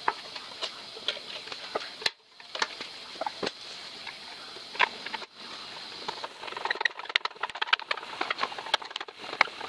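Light clicks, taps and scrapes of hands and a screwdriver working on the engine's metal parts as the fuel tank is set in place, with a quick run of small clicks in the last few seconds.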